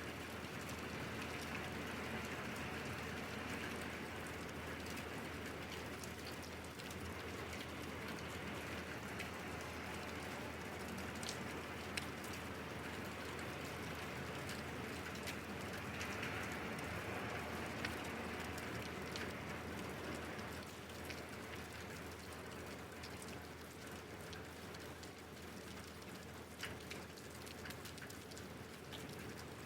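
Steady rain falling, an even hiss with scattered sharper drop ticks. It eases slightly about two-thirds of the way through.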